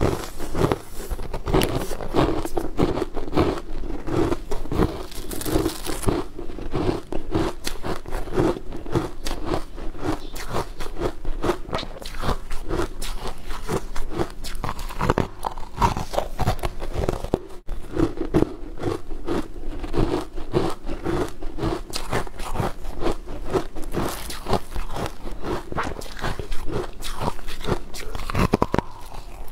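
Close-miked eating: teeth biting and crunching through crumb-coated pastries and chewing them, with rapid wet mouth clicks throughout.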